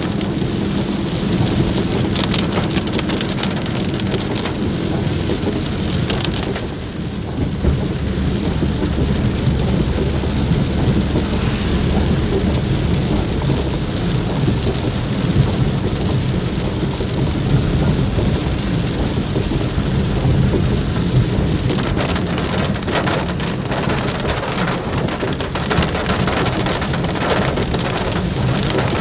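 Heavy rain falling on a car's windshield and roof, heard from inside the car, with a steady low hum underneath. The sharp hits of drops grow more frequent from about twenty-two seconds in.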